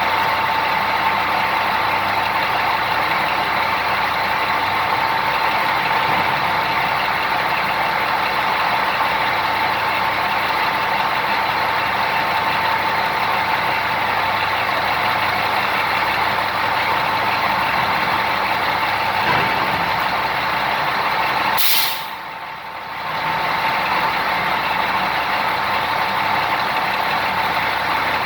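Large mining haul truck running steadily at a constant pitch, with a steady high tone over it. About three-quarters of the way through there is a short sharp burst of noise, and the sound briefly drops away afterwards.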